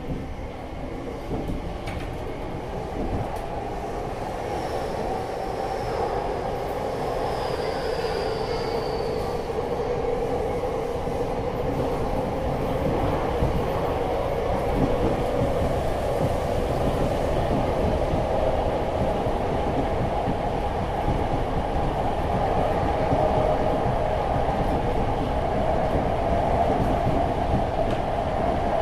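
Interior running sound of a Tokyo Metro 7000 series train: a steady rumble and hum from the wheels and motors that grows louder over the first half and then holds. A faint high squeal comes in about five seconds in and lasts a few seconds.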